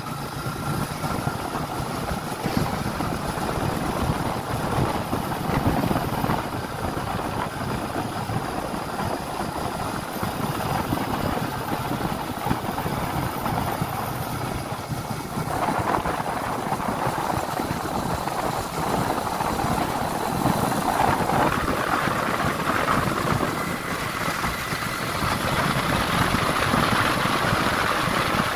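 Motorcycle engine running while riding, mixed with the rush of road and wind noise, getting a little louder near the end.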